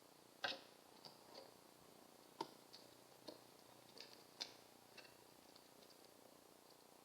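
Faint, irregular light taps and clicks of pigeons pecking at an empty bird feeder, about a dozen in all, with the sharpest three spread through the middle.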